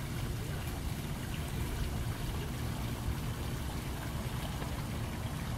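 Steady trickling and splashing of water from a tiered garden fountain, with a low rumble underneath.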